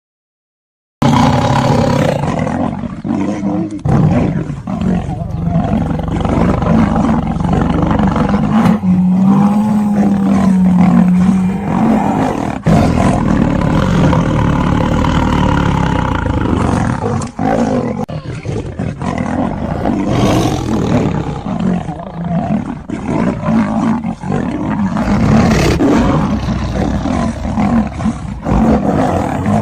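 Tiger and lion snarling and roaring without a break as they fight, starting abruptly about a second in.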